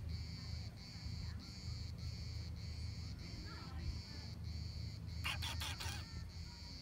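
High-pitched insect chorus, pulsing steadily about twice a second, with a brief cluster of sharp clicks or rustles about five seconds in.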